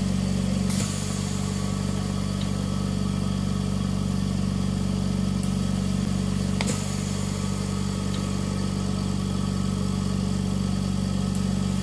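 Invacare Perfecto oxygen concentrator's compressor running with a steady hum, while its solenoid valve pack clicks twice, about six seconds apart, each click with a rush of air as the valves switch the sieve beds, pressurizing one and venting the other. The switching comes faster with the flow raised.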